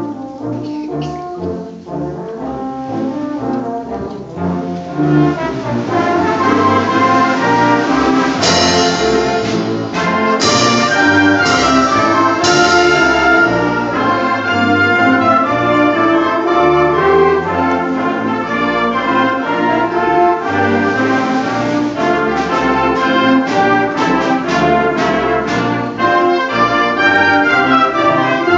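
High school wind band playing live, brass to the fore. It swells from a softer passage to the full band about five seconds in, with a run of sharp accented hits a few seconds later and another flurry of them near the end.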